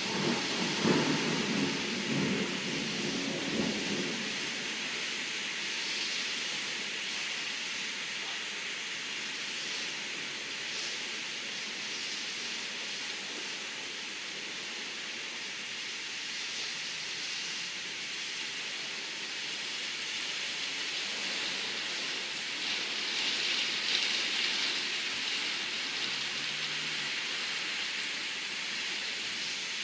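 Heavy rain and wind of a downburst thunderstorm as a steady hiss, heard from behind window glass. A deep rumble of thunder fills the first few seconds, and the rain hiss swells briefly about 23 seconds in.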